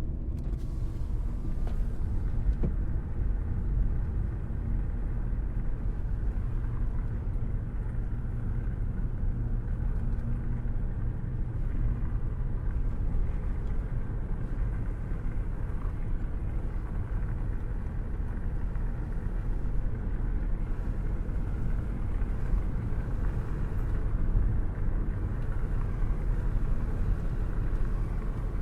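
Car cruising at a steady speed with a window open: a steady low rumble of road and engine noise mixed with wind rushing in.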